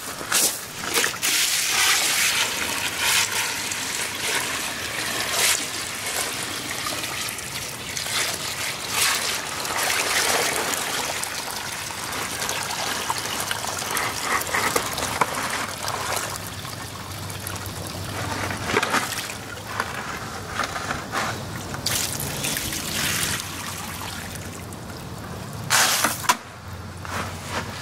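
Homemade electric impact mill crushing ore: a steady gritty rattle and hiss of broken rock churning inside, with scattered sharp knocks of stone on steel. A low motor hum comes in partway through.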